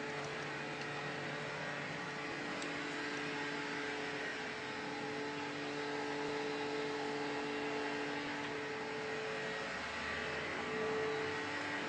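A steady machine hum with a few constant tones, and one or two faint ticks about two and a half seconds in.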